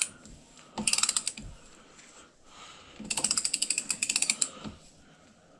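Ratchet of a click-type torque wrench clicking rapidly as it tightens a mount bolt, in two runs: a short one about a second in and a longer one about three seconds in.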